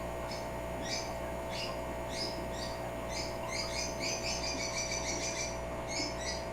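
African grey parrot chirping: short, high chirps about every half second, quickening into a rapid run of chirps through the middle.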